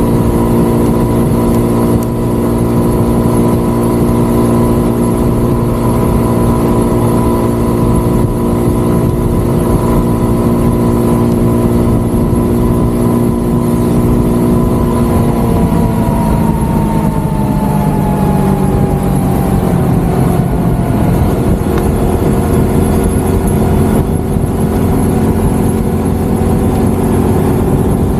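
Motorcycle engine running at a steady cruising speed; about halfway through its note falls gradually as the bike slows, then holds steady at a lower pitch.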